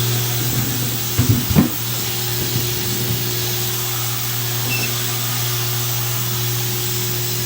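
Ultrasonic parts cleaner running with engine parts in its bath: a steady low hum with an even, sizzling hiss over it. There are a couple of brief knocks about a second and a half in.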